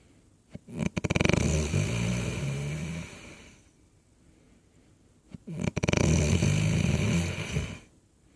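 Someone snoring in their sleep: two long snores a few seconds apart. Each opens with a fluttering rattle and carries on as a low drone for two to three seconds.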